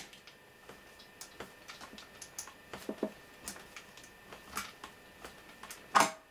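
Light, irregular clicks and ticks of a screwdriver undoing the middle screw on the heavy cable connector between a military radio's base plate and radio module, with one louder knock near the end.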